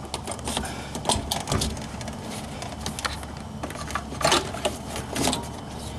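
Scattered, irregular plastic clicks and knocks as quick-connect fuel line fittings are handled and popped onto the fuel pump module's lines.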